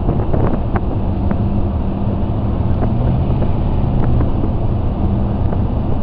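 Car driving on a snow-covered road, heard from inside the cabin: a steady low engine and tyre rumble with a light hum, and a few faint clicks in the first second and a half.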